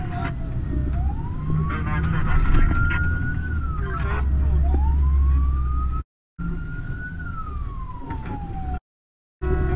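Fire engine siren wailing, its pitch sliding slowly up and down every few seconds, heard from inside the cab of a Volvo FL 4x4 fire truck over the steady low drone of its diesel engine. The sound cuts out completely twice, briefly, in the last few seconds.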